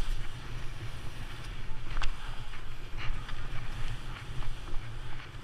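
Wind rumbling on a skier's camera microphone during a downhill run, with the skis hissing over soft spring snow. A few sharp clicks come about two and three seconds in.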